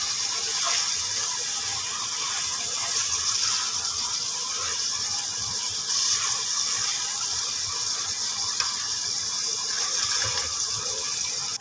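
Chicken and chopped tomato masala sizzling in a frying pan as a spoon stirs and scrapes through it, with a steady frying hiss. This is the tomatoes being fried and mixed into the chicken.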